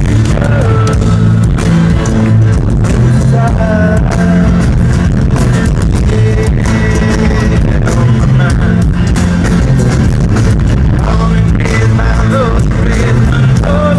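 Rock band playing live through a festival PA: heavy bass, drums and electric guitar, with a voice singing in places. Recorded from the crowd, the sound is loud, boomy and distorted.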